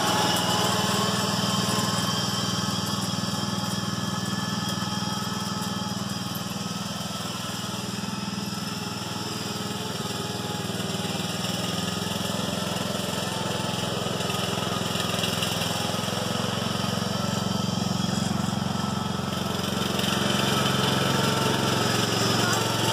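Small engine of a riding lawn mower running steadily as it drives across the grass, getting quieter in the middle as it moves farther off and louder again near the end as it comes back.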